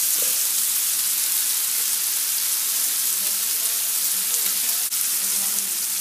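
Chopped bacon frying in a skillet: a steady sizzle with faint crackles.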